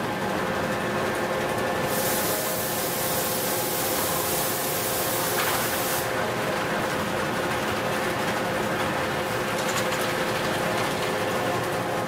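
Automated hot-forging line machinery running with a steady hum and a constant tone. About two seconds in, a loud hiss starts and cuts off suddenly some four seconds later. Light rapid clicking follows.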